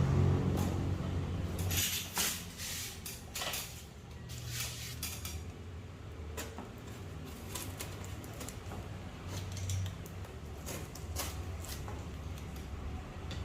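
Packaging being handled during an unboxing: irregular knocks, clicks and scrapes, over a low steady hum.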